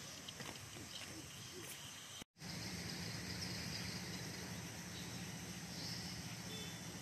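Outdoor ambience with a steady hiss of insects and faint chirps. About two seconds in, the sound drops out for an instant at an edit, and after that a steady low hum runs underneath.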